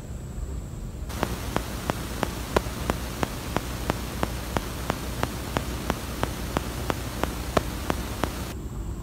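Sharp, evenly spaced clicks, about three a second, over a steady hiss.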